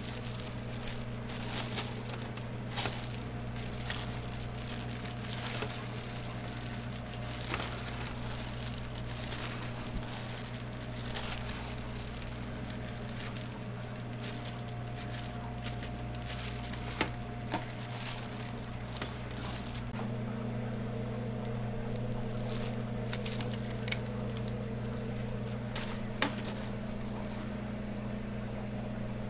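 Thin plastic food-prep gloves crinkling and soft squishing as melon balls are handled and pressed onto shaved ice, with a few sharp clicks. A steady machine hum runs underneath throughout.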